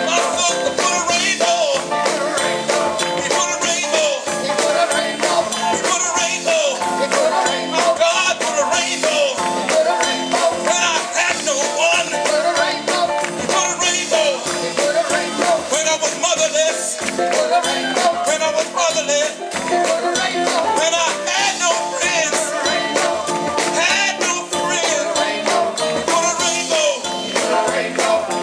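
Live gospel band performing: voices singing over a steady beat of drums and percussion.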